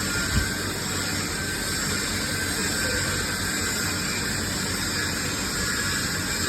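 TIG (GTAW) welding arc with argon shielding gas, running as a steady hiss with a low electrical hum. There is a brief low thump about half a second in.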